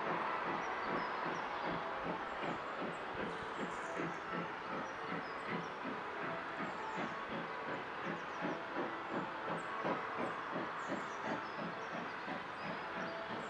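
Steam locomotive working out of sight, its exhaust beat coming about three times a second over a steady hiss, the beat growing clearer in the second half.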